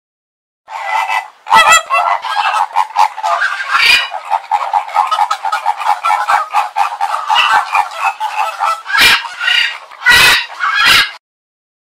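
A flock of flamingos honking, many calls overlapping in a continuous clamour, with a few louder single honks standing out, especially near the end. It starts just under a second in and stops shortly before the end.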